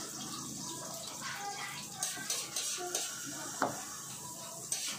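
A fork and spoon clinking and scraping on a ceramic plate as instant noodles are twirled and eaten, with a few sharp clinks between two and four seconds in, over a steady hiss.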